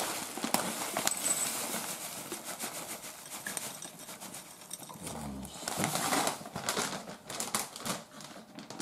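Crinkling and rustling of a snack packet being handled and tipped out, with small dry pieces pattering into a glass bowl. The rustle is irregular and grows louder about six seconds in.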